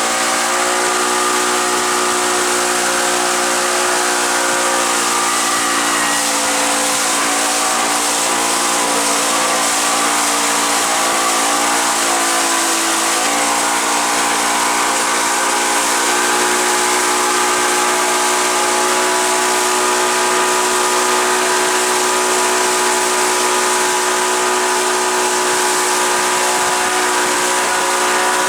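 Motorboat engine running steadily under heavy wind and spray hiss, its pitch dipping briefly and recovering about halfway through.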